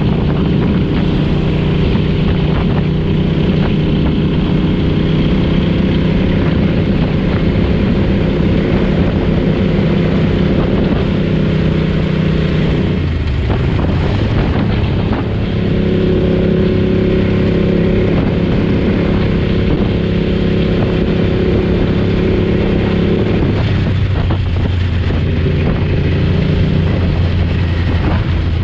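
Vee Two Ducati Alchemy's V-twin engine running at a steady road speed, with wind rushing past the microphone. The engine note dips briefly about halfway through, then picks up again, and eases to a lower note for the last few seconds.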